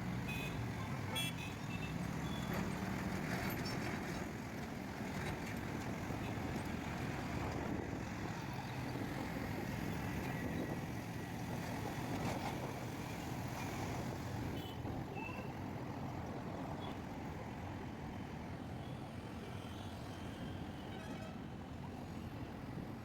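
Busy road traffic: a steady din of engines and tyres, with a few short horn toots.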